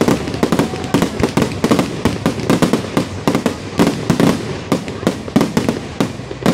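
Aerial fireworks: a rapid, continuous barrage of shell bursts and crackling reports, many sharp cracks every second with no gap between them.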